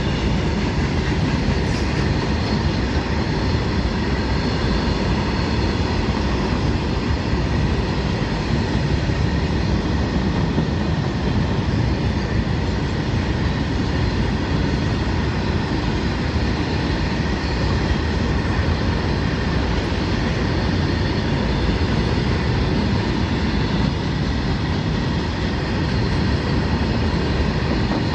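A long rake of open-top freight wagons rolling past, a steady rumble and rattle of wheels on the rails, with a faint high ringing above it.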